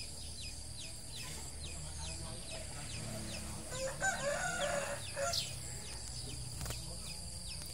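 A rooster crows once, starting a little under four seconds in and lasting about a second and a half. Underneath it runs a steady high hum and a string of short chirps, a few each second.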